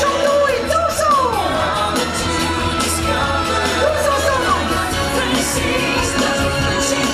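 Stage-show music with a sung vocal line and a constant low bass, played over outdoor loudspeakers; a falling glide in the melody about a second in.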